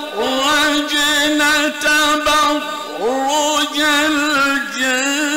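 A male Quran reciter chanting in a slow, melodic, drawn-out style, holding long ornamented notes with wavering and gliding pitch. The phrases break off briefly twice, and the second one opens with a rising glide.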